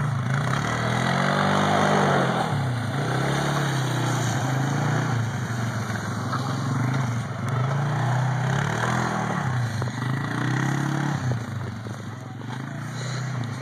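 Utility ATV engine revving up and down as the quad drives through snow, its pitch rising and falling several times. It grows fainter near the end as the quad moves off.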